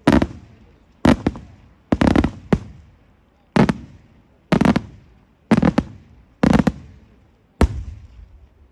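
Aerial firework shells of a daytime display bursting in loud bangs about once a second, some in quick pairs, each trailing off over most of a second.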